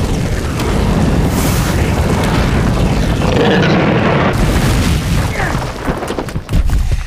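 Film sound effects of a dragon breathing fire: a loud, continuous rush of flame with deep booms, and a roar from the dragon a little past the middle. The blast falls away sharply at the very end.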